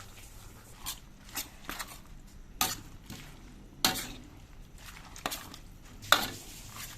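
A metal spatula scraping and knocking against a pan at irregular intervals as noodles and vegetables are stirred, over a faint sizzle of frying.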